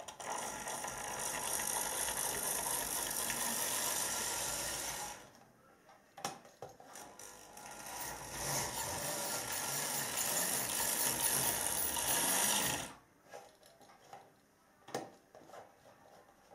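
Model Hymek diesel locomotive's electric motor and gearing running as it travels along the track, a whirring rattle in two spells of about five seconds each, with a short gap and a few clicks between them. Its owner finds the loco a bit sluggish and in need of loosening up.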